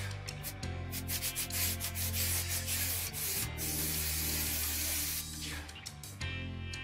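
Aerosol spray adhesive hissing as it is sprayed onto upholstery foam: a few short spurts, then a long spray for about three and a half seconds with one brief break, stopping about five seconds in. Background guitar music plays underneath.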